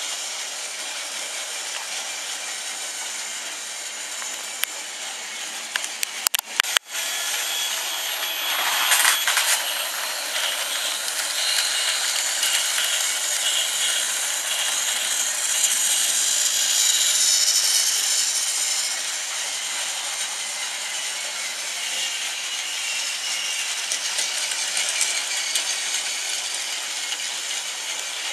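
Battery-powered Trackmaster toy trains running: a steady high whir of small motors with plastic wheels rattling along plastic track. It gets louder for a while in the middle, and there are a few sharp clicks about six to seven seconds in.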